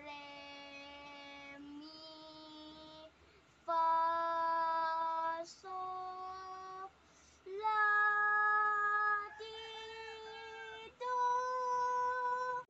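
A child singing the solfège scale upward from re to high do, seven held notes in all, each syllable sustained about a second and a half and each a step higher than the last, with short breaks between them.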